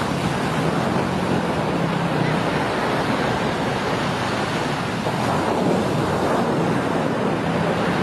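Steady rushing wind on the microphone mixed with surf on a beach, with a low steady hum underneath.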